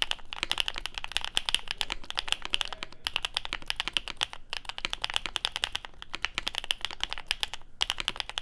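Fast typing on a KBD67 Lite mechanical keyboard with Coley linear switches (long-pole stems, PBT bottom housings), a quick run of keystrokes broken by short pauses every second or two. The keystrokes have what is called a creamy pop.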